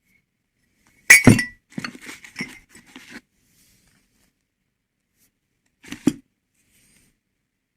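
Glassware clinking: a sharp clink with a brief ring about a second in, a couple of seconds of lighter clinks and rattles, then another single clink near the end.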